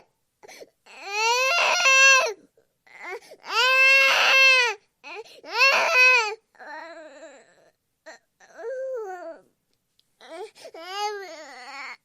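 Infant crying in a string of separate wailing cries, each about a second long, with short pauses between them. The cries drop to softer whimpering fussing about halfway through, then grow louder again near the end.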